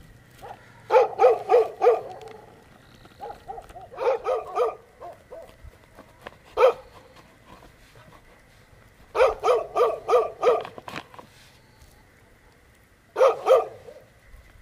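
A dog barking in bouts of quick barks: four, then five or six, then a single bark, then a run of about seven, then three near the end, with pauses between.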